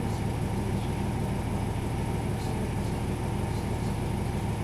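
Steady running noise inside a diesel railcar: engine drone and a low rumble of wheels on the track, with a few faint clicks.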